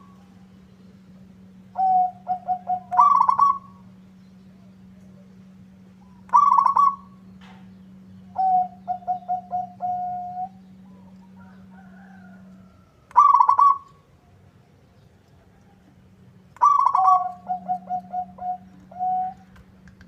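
Zebra dove (perkutut) cooing in repeated phrases, each a quick stutter of short notes with a louder, higher group and a run of lower staccato coos, a phrase every few seconds. A faint steady low hum lies underneath and drops out for a few seconds around the middle.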